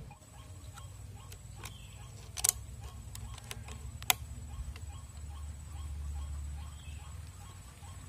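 Faint low rumble with scattered soft clicks and ticks, two sharper ones about two and a half and four seconds in, over a thin steady high tone.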